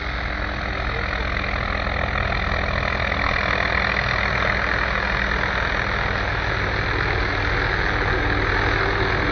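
Police helicopter's turbine engine and rotor running close by, a steady low drone with a broad rushing noise that grows slightly louder.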